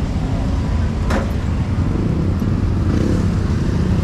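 Steady low rumble of street traffic, motor vehicle engines running close by, with a sharp click about a second in.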